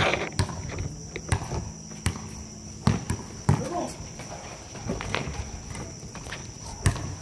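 Basketball game sounds: irregular thuds of the ball on a hard court and players' footsteps, with players' voices calling out. A steady high insect trill runs underneath.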